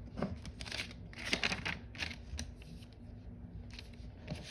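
A sheet of paper rustling and crinkling as it is folded and creased by hand: a run of short scrapes over the first couple of seconds, then a few more near the end.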